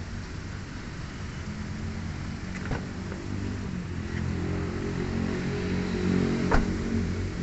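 Engine of a passing road vehicle, traffic in the street, growing louder over several seconds. Two sharp clicks cut through it, the second and louder one near the end.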